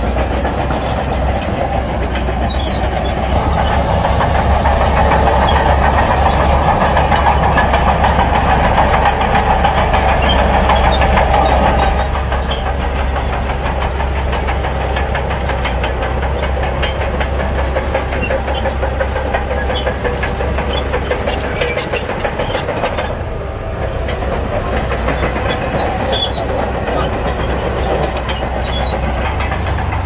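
Shantui DH17-C2 crawler bulldozer working: its diesel engine runs steadily under load with the rapid clatter of its steel tracks. The sound swells for several seconds in the first half, then settles to a steadier level.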